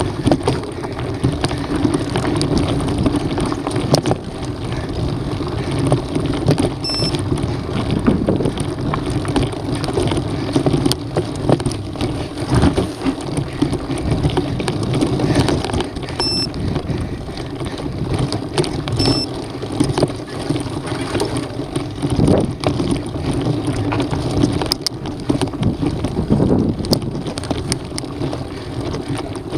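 Mountain bike riding over a dirt trail: wind buffeting the camera's microphone and tyres rolling over dirt and loose rock, with frequent short clicks and rattles from the bike.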